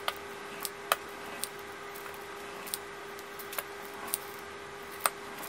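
Pizza cutter rolling through cracker dough on parchment paper, with short sharp clicks about once a second as it makes its cuts. A faint steady hum underneath.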